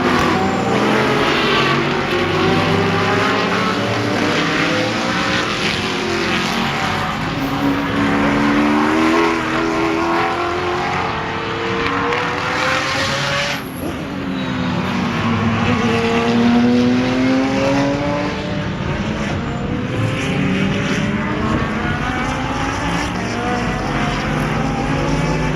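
GT1 racing cars running at speed on a circuit, several at once, their engines rising and falling in pitch as they accelerate, shift and pass by. There is a brief break about halfway through.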